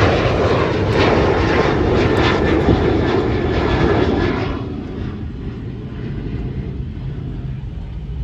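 Southwest Boeing 737 jet airliner passing close by. Its engine noise is loud, then drops away sharply about four and a half seconds in, leaving a low rumble of wind on the microphone.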